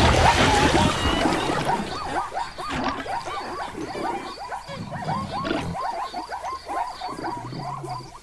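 A sudden loud burst, then a rapid run of short animal calls repeating several times a second.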